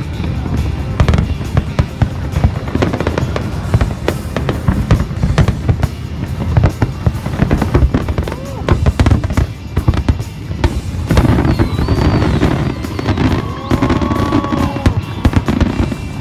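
Fireworks display: a rapid, continuous barrage of bangs and crackling bursts with deep booms, and music playing alongside.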